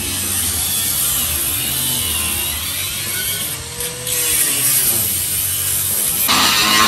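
Angle grinder with a cut-off wheel cutting through the rusty sheet-steel roof skin of a 1967 Pontiac Firebird. Its whine rises and falls as the wheel bites, and the cut turns louder and harsher about six seconds in.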